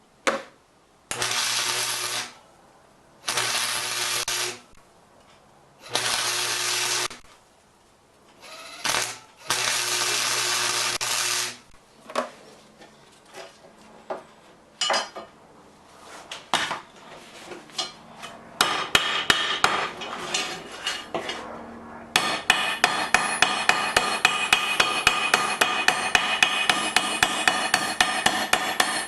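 Electric welder laying four short tack welds on steel, each a second or two of steady hissing crackle with a hum, with pauses between. Then scattered knocks on metal, and near the end a fast, steady run of tapping and scraping on the metal.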